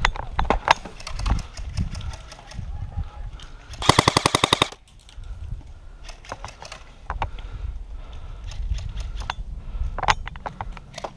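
Airsoft gun firing one fast full-auto burst of about a second, some twenty shots, about four seconds in. Scattered single sharp cracks and clicks come before and after it.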